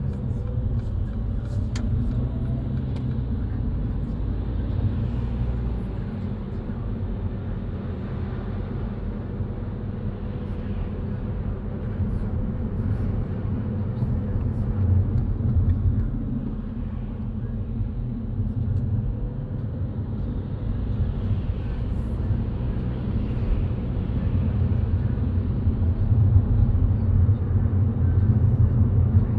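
Steady road noise of a car driving in the rain: a low rumble of tyres and engine with a fainter hiss above it, growing a little louder near the end.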